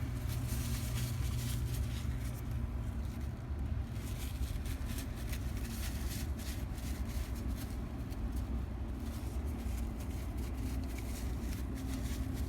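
A steady low drone runs throughout, with faint scattered small ticks and clicks over it.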